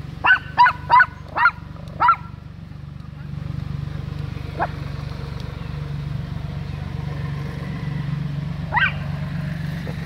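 Dog barking at play: five short, sharp barks in quick succession in the first two seconds, then a single bark around the middle and another near the end. A steady low rumble runs underneath from about three seconds in.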